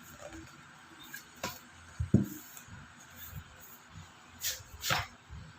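Items and packaging being handled on a table during an unboxing: a sharp click, then a louder thud about two seconds in, and two short scraping or rustling sounds near the end.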